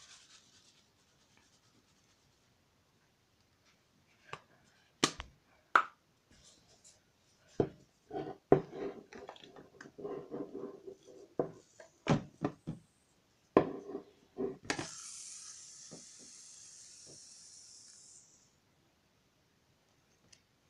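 Several sharp knocks and clicks as the can and bowl are handled, then a shaving-foam aerosol can spraying foam into a plastic bowl: a steady hiss lasting about four seconds, starting about two-thirds of the way in and cutting off suddenly.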